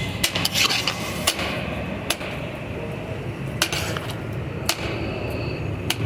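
Metal utensils knocking and clinking against cookware, about eight sharp strikes at irregular intervals, over a steady low background hum.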